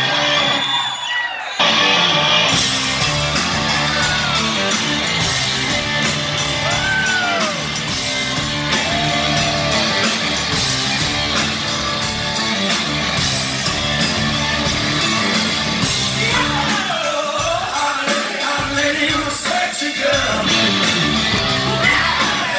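Rock band playing live: electric guitars, bass and drums under a male lead singer with high, sliding vocal lines. The full band comes in about a second and a half in after a brief thinner moment.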